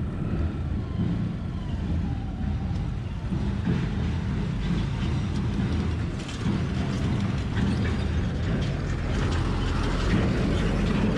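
Motor vehicle running over a rough, unpaved road, its engine rumbling low with steady rattling and clattering from the body, louder in the second half.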